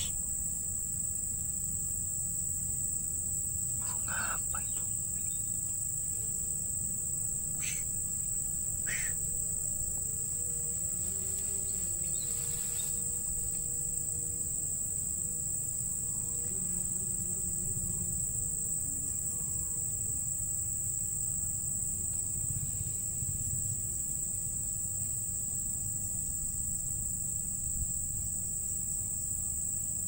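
Steady, high-pitched drone of insects in the trees, with a few short bird chirps about 4, 8 and 9 seconds in.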